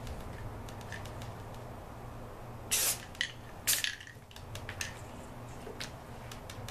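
Aerosol spray paint hissing from a rattle can in two short bursts about a second apart, near the middle, as paint is sprayed through a leafy branch laid as a stencil.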